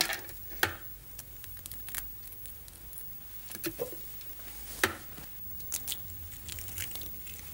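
Scattered light clicks and knocks as a stand mixer's stainless-steel bowl and flat beater are handled, over a faint steady low hum.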